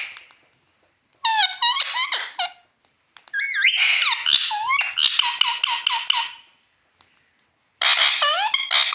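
Pet parrot imitating a ringing bell with high, squeaky calls in three bouts, about a second in, about three seconds in and near the end. The later bouts break into fast, evenly repeated notes, about five a second.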